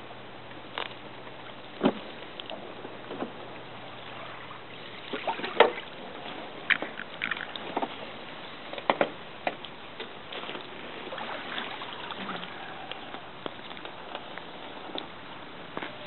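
Steady outdoor rushing noise, like wind and water at the shore, broken by a string of sharp knocks and clicks, the loudest about five and a half seconds in.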